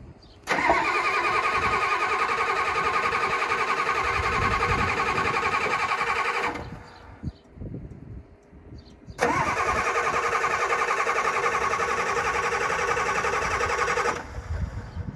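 Starter cranking a Ford pickup's diesel engine on a cold start: two long cranks of about six and five seconds with a short pause between. Each crank stops abruptly without the engine catching.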